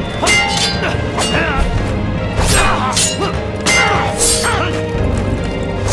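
Background drama music with repeated sharp hit and crash sound effects of a staged fight, landing about every half second to a second.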